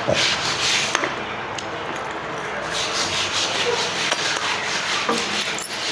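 Close-up eating noises: chewing and hands rubbing and scraping through food, in repeated short scratchy strokes, several a second.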